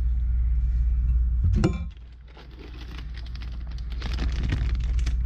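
Plastic packaging crinkling and rustling as it is handled, with light clinks, over a steady low hum. A short pitched sound comes about a second and a half in.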